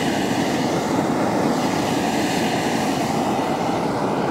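Donuts deep-frying in a wide pan of hot oil, with a steady sizzling of bubbling oil around the dough.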